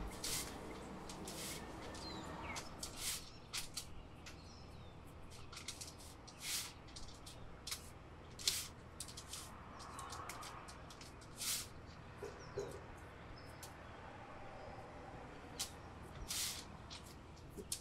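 Hands patting and pressing soft cauliflower pizza crust dough flat on parchment paper: irregular soft pats and slaps with crinkles of the paper, a few louder than the rest. Faint bird chirps in the background.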